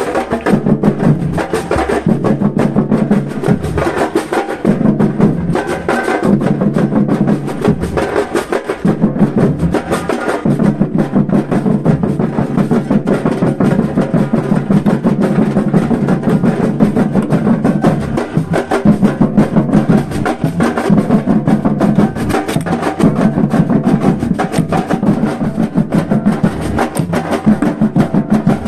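Live percussion group playing a fast, driving drum rhythm: dense rapid hits over repeating low drum tones.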